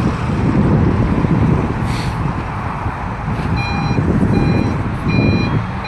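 Mercedes Sprinter police van's reversing alarm beeping, starting a little over halfway in and repeating about once every 0.7 seconds, over a steady low rumble of the van manoeuvring close by.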